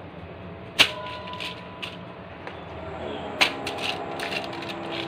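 A few sharp clicks and light crinkles of handling as raw chicken thighs are laid on a foil-lined baking tray, the loudest click about a second in and another just past three seconds.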